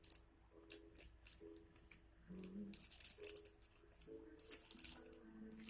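Faint background music with a slow, soft melody, over short crisp crackling and scraping sounds.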